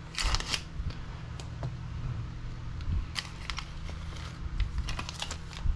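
Small clear plastic parts bags crinkling as they are handled and opened, with scattered sharp clicks from the small parts inside, over a steady low hum.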